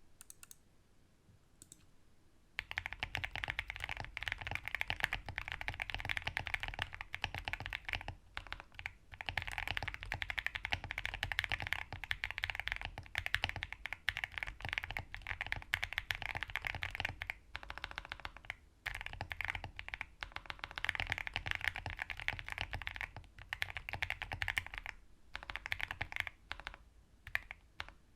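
Steady fast typing on a QK65 mechanical keyboard with Akko Ocean Blue switches, Durock V2 stabilizers and PE foam, starting about two and a half seconds in, with a few brief pauses.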